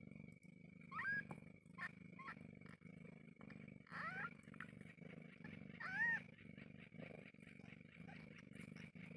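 Newborn kittens squeaking with several short, high mews, around one, four and six seconds in, over the mother cat's steady low purr as they nurse.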